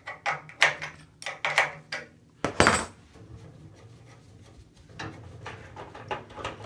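Steel open-end wrenches, tied together on a ring, clinking and jangling as a 3/8-inch wrench loosens the thermocouple nut on a water heater's gas control valve. Irregular clicks and rattles, with the loudest clank about two and a half seconds in, a quieter spell, then more clicks near the end.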